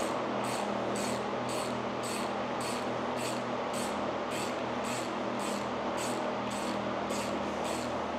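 Hand ratchet clicking in quick, even back-and-forth strokes, about two a second, as it runs in a bolt at the timing-chain end of a GM Ecotec 2.0 LNF engine, over a steady background hum.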